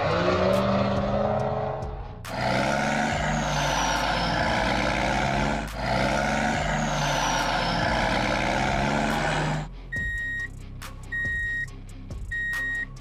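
Dubbed heavy truck engine sound effect running loudly and cutting off sharply after about ten seconds. It is followed by a reversing alarm beeping three times, about once every second.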